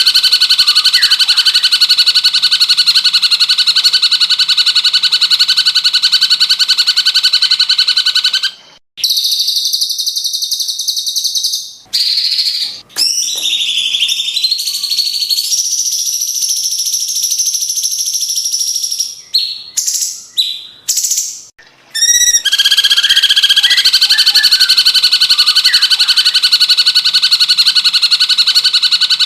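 Recorded cucak cungkok birdsong played for training magpie robins: a loud, steady, rapidly pulsing trill that gives way, from about nine seconds in, to a run of varied sharp whistled phrases with rising and falling notes and short breaks, before the steady trill returns.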